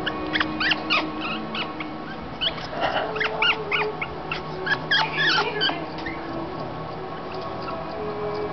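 African grey parrot making short, high squeaky chirps that glide up and down, a quick run in the first second and a denser string from about two and a half to six seconds in.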